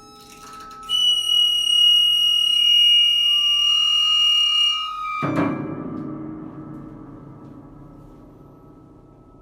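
Experimental chamber music: a high, piercing held tone sounds for about four seconds, then a low, drum-like struck note, from prepared piano, rings out about five seconds in and slowly fades.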